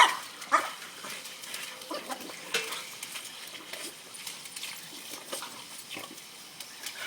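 A dog making short vocal sounds while playing with a ball: a loud one right at the start and another about half a second later, then fainter sounds and light knocks.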